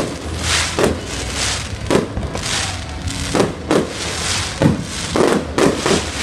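Aerial firework shells bursting one after another: about nine sharp bangs at irregular intervals, each trailing off briefly.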